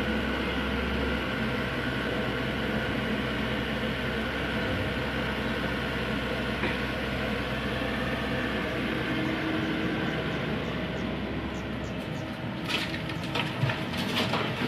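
Mini excavator's diesel engine running steadily while it works. From about two-thirds of the way through come scattered knocks and clattering, the loudest sounds here.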